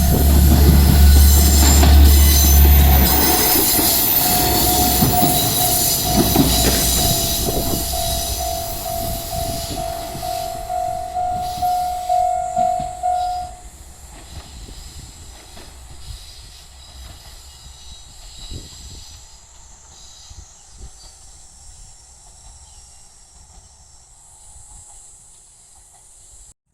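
A KiHa 120 diesel railcar passes over a level crossing, its engine and wheels loud for the first few seconds, then fading as it moves away. The crossing's warning bell rings throughout and stops suddenly about halfway through, leaving faint background noise.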